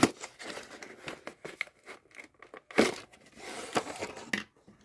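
Cardboard box being slid open from its sleeve and paper cards inside rustling and crinkling as they are handled, with a sharp click at the very start and a louder scrape about three seconds in.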